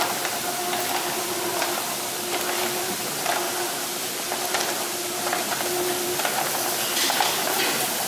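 Oyster sorting machine running with a steady hiss and a faint hum, and oyster shells clicking and clattering on its metal mesh conveyor.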